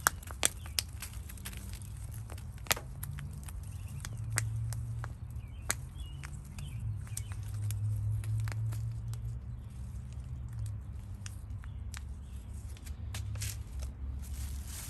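Hands packing potting soil into a cut-down plastic water bottle: scattered sharp clicks and crackles of plastic and soil, the loudest near the start and about three seconds in, over a low steady hum.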